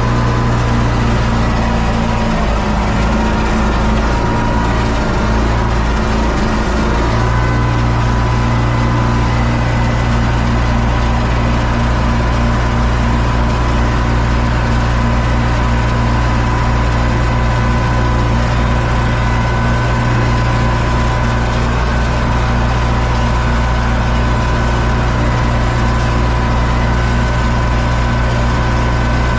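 Universal U650 tractor's four-cylinder diesel engine running steadily under load while pulling a seed drill, heard from inside the cab. Its note shifts slightly about seven seconds in.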